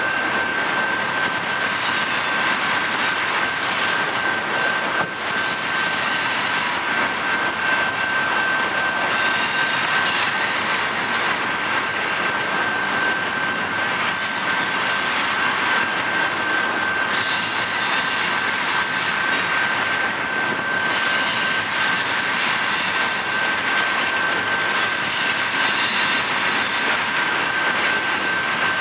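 Freight train of tank cars rolling steadily past, wheels clattering over the rails, with a steady high-pitched squeal held throughout.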